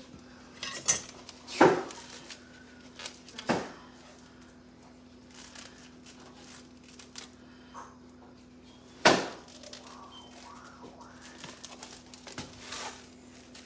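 A kitchen knife being handled and a plastic-wrapped pack of ground beef being cut open. Three sharp knocks of the knife, well spaced, come between faint crinkling of the plastic wrap. A steady low hum sits under it all.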